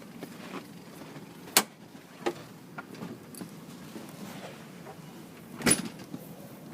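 Three sharp knocks or clacks over a steady low rumble: the loudest about a second and a half in, a weaker one just after, and a slightly longer one near the end.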